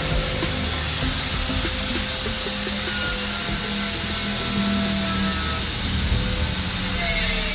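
Electric power tool motor running steadily with a high whine, its pitch sagging slightly near the end as if under load.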